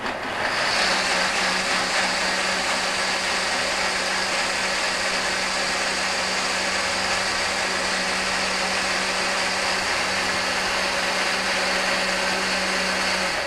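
Countertop blender running at a steady speed, its motor hum and the churning contents loud and even, as it purées raw vegetables and water into a smooth liquid. It switches off near the end and winds down.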